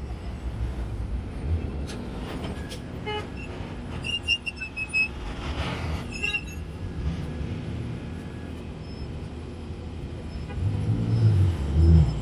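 City street traffic: a low rumble of vehicles with a run of short high beeps about four to six seconds in, then a New York City bus's engine swelling loudest near the end as it turns through the intersection close by.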